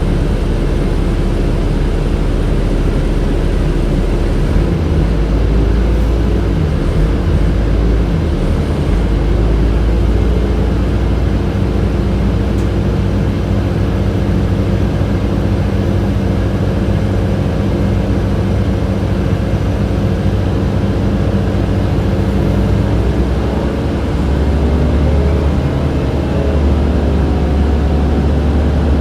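Interior sound of a 2007 Orion VII transit bus under way: the engine's steady low drone over the hiss of the HVAC system. The drone shifts in pitch about five, ten and twenty-four seconds in as the bus changes speed.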